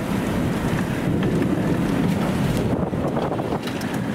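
Strong storm wind rushing and buffeting against the microphone, over the low rumble of the storm-chase vehicle. The wind is from a tornadic supercell's outer circulation.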